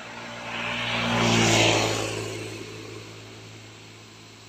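A motor vehicle driving past: engine hum and tyre hiss swell to a peak about a second and a half in, then fade away.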